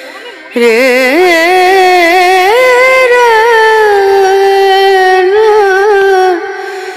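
Background music: a single slow melody of long, wavering held notes, coming in about half a second in and falling away near the end.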